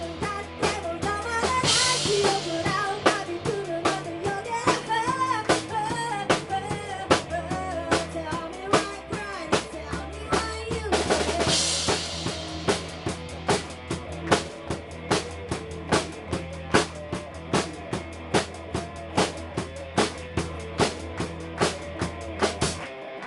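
Instrumental passage of a rock song, with a full drum kit keeping a steady beat under a bass line and a wavering lead line. Cymbal crashes come about 2 seconds and about 11 seconds in, and the bass drops out just before the end.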